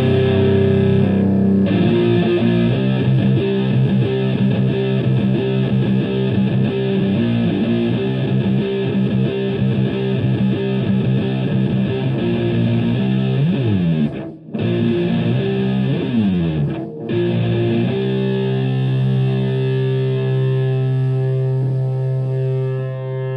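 Electric guitar played through a germanium three-transistor Tone Bender MKII-style fuzz pedal into a Marshall Plexi amp, with heavy fuzz. A riff of quick notes, two sliding runs that each stop short, then a held chord left to ring near the end.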